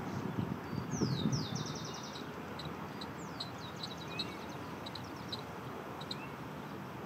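A songbird singing: high, rapid trills and quick down-slurred notes, starting about a second in and breaking off around five seconds, over steady low background noise.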